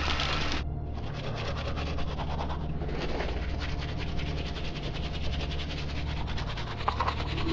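Tap water running briefly onto a toothbrush, stopping about half a second in. Then a toothbrush scrubbing teeth in quick back-and-forth strokes.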